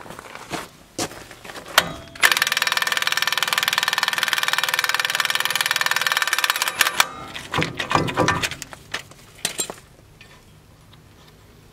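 Cordless impact wrench hammering steadily on a suspension nut for about four and a half seconds, a tool the owner says is not working as well as it should, with sharp metal clicks and knocks of tools before and after it.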